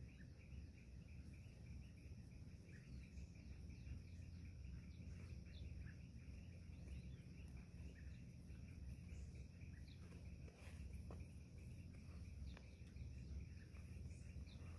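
Faint outdoor ambience: a steady, rapidly pulsing insect trill with scattered short bird chirps over a low background rumble.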